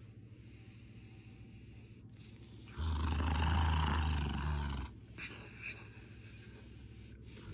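Dog growling once for about two seconds, a low steady growl, while its lips are drawn back and teeth bared.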